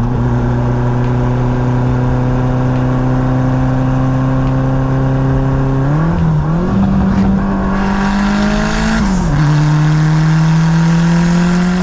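A car engine running at a steady pitch, which rises about six seconds in, holds higher, drops around nine seconds, then slowly climbs again, as when an engine is revved and let back down.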